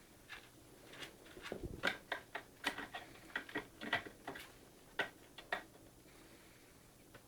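A degu with no upper incisors eating soft pap: quick, irregular small clicks and smacks that come in a run from about a second in to just before six seconds, with one soft low bump about one and a half seconds in.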